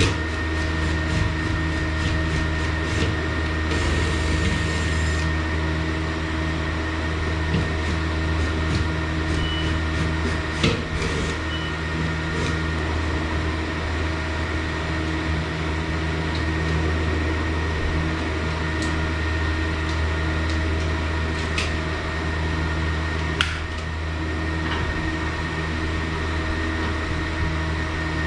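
Steady mechanical hum of a running motor, with a few sharp clicks and knocks, one about eleven seconds in and one near twenty-four seconds, and a short hiss about four seconds in.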